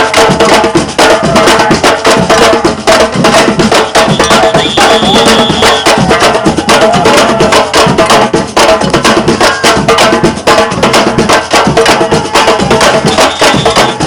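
Batucada ensemble playing loud samba percussion: a dense, driving rhythm of many sharp drum strokes, with a steady high note held twice, about four seconds in and near the end.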